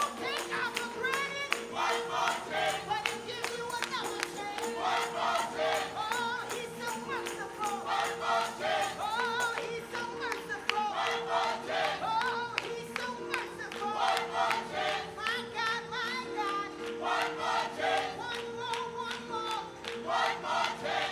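Gospel choir singing with instrumental accompaniment: a held note underneath and a fast, steady percussive beat.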